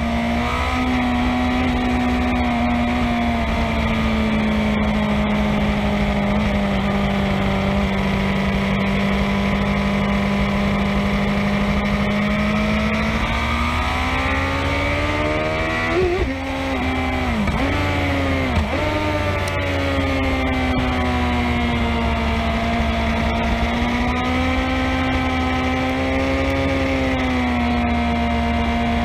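Motorcycle engine running hard at high revs, heard from right beside its exhaust silencer, over steady wind rumble. The pitch sags slowly, climbs, then dips sharply twice about halfway through before rising again and holding.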